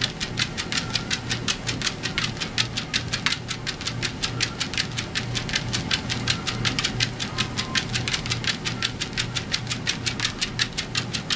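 A Cardigan Welsh Corgi's paws striking a moving electric treadmill belt as she trots, an even quick pattering of about five footfalls a second, over the steady hum of the treadmill motor.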